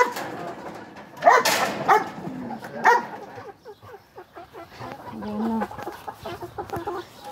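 Dogs yelping and whining: a few short, sharp yelps about a second and a half to three seconds in, then a low drawn-out whine about five seconds in.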